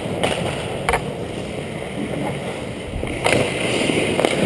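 Hockey skates gliding and scraping on rink ice, with a louder scraping hiss about three seconds in and a few sharp clacks.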